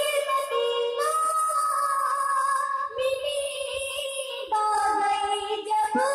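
A young girl singing a naat (Urdu devotional hymn) into a handheld microphone, holding long notes that bend in pitch, with new phrases starting about a second in, at three seconds and again past four seconds.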